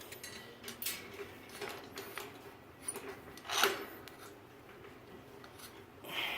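Light metallic clicks and rattles of steel hospital-bed frame parts being handled and fitted together, with one louder scrape-like clank about three and a half seconds in.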